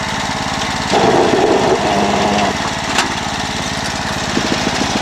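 Small single-cylinder engine of a riding lawnmower running steadily, louder for about a second and a half shortly after the start, with one sharp click about three seconds in.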